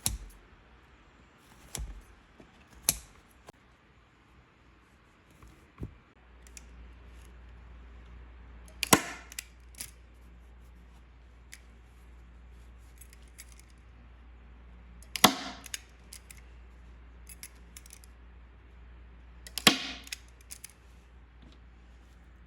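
A series of sharp snaps and clicks at irregular intervals, the three loudest about six seconds apart, over a low steady hum that comes in about six seconds in.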